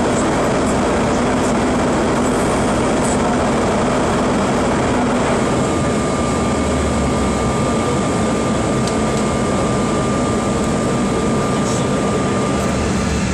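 Steady cabin noise of a CRJ regional jet in flight: the rush of air and the drone of its rear-mounted GE CF34 turbofans, heard from inside the passenger cabin. A thin steady whine joins in about halfway through.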